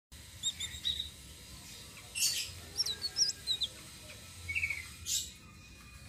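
A caged blue flycatcher (tledekan) singing in short, varied high whistled notes and chirps, some with quick upward or downward hooks in pitch. Two brief harsh, hissy bursts come at about two and five seconds in.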